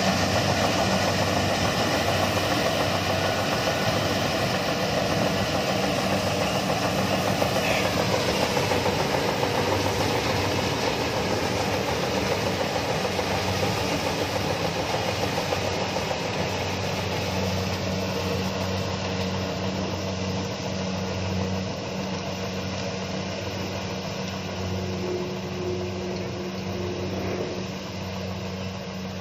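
Kubota DC-70 combine harvester's diesel engine running steadily while harvesting rice: a steady hum over broad mechanical noise, fading gradually as the machine moves away.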